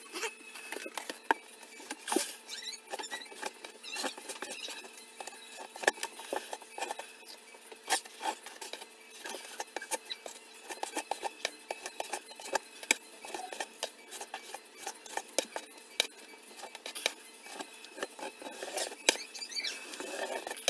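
Irregular small clicks, taps and scrapes of hand work, scattered unevenly with no steady rhythm.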